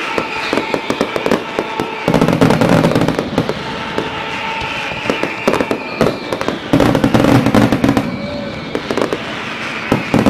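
Fireworks going off in a rapid stream of sharp cracks and pops, with heavier, deeper booms about two seconds in and again about seven seconds in.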